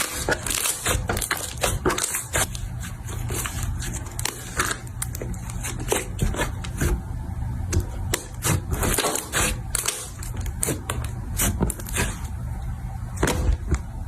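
Slime being squished and poked by hand, making irregular clicking and crackling pops.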